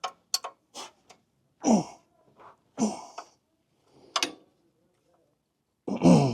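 A 9/16 wrench working a fuel line fitting at a carburetor: a string of sharp metal clicks, with three louder short scraping sounds that drop in pitch, about a second and a half, three seconds and six seconds in.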